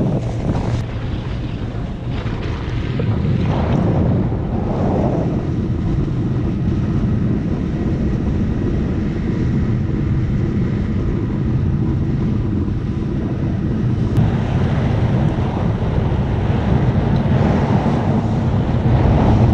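Strong wind buffeting the microphone over the rush of water along the hull of a sailing yacht moving fast under sail, swelling a little near the end.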